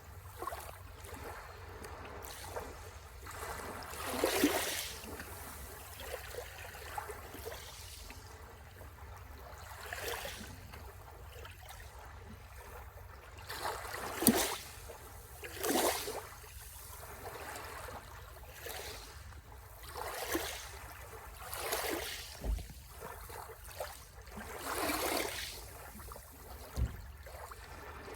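Small sea waves breaking and washing on the shore, one wash of surf every two or three seconds, a few landing with a sharper splash.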